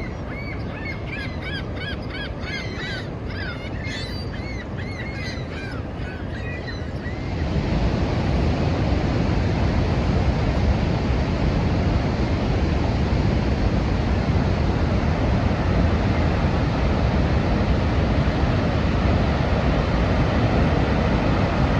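Steady roar of Niagara Falls' falling water, with birds giving many short, rapid, rising-and-falling calls over it. About seven seconds in, the roar suddenly grows louder and fuller and the calls are lost under it.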